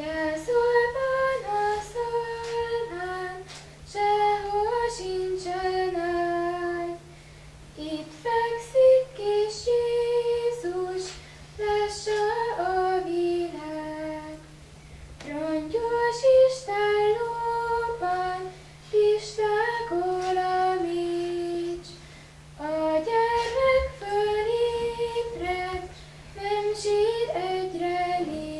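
A solo female voice sings a well-known song unaccompanied, in stepwise melodic phrases of a few seconds separated by short breaths. A steady low electrical hum runs underneath.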